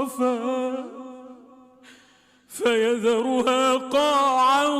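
A solo male voice chanting Quran recitation in a melodic, ornamented style. He holds a long wavering note that fades away, breaks off for about a second, and resumes with a rippling melismatic line.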